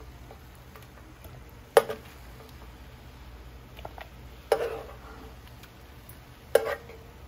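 Metal slotted spoon knocking and scraping against a pan of steamed chicken pieces as they are scooped out: three sharp clanks, each with a short ring, over a low steady hum.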